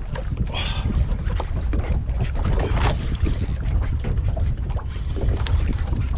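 Wind buffeting the microphone with a heavy low rumble, over water slapping against a small boat's hull, with scattered short clicks and knocks.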